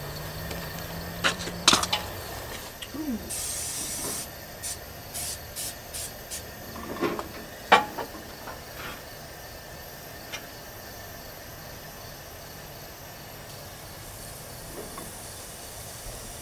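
Steady hissing from the stove and the hot stovetop waffle iron, with a few sharp metal clanks and clicks in the first eight seconds as the iron is handled, and a short burst of higher hiss a few seconds in.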